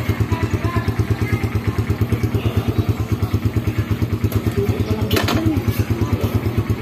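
Motorcycle engine idling with an even, rapid pulsing beat, with a few light knocks near the end.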